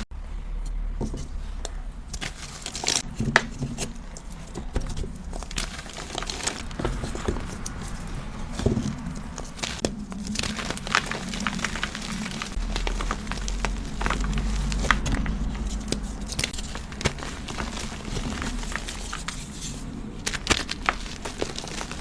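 Dyed BSN gym chalk cubes being crushed and crumbled, with a continuous irregular crunching full of sharp crackles and snaps. A low steady hum runs underneath.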